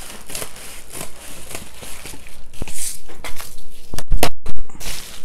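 Scissors cutting open a padded bubble mailer, the paper envelope crinkling and rustling with many small crackles. A couple of loud thumps come about four seconds in.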